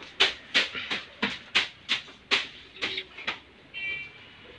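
A regular series of sharp clicks or taps, about three a second, that stops a little over three seconds in, followed by a brief high-pitched tone.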